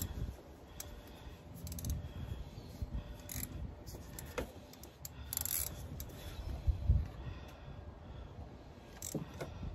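Socket ratchet and metal tools clicking and clinking against engine parts while spark plugs are being worked loose, in irregular short clicks with a brief ratchet run about five and a half seconds in.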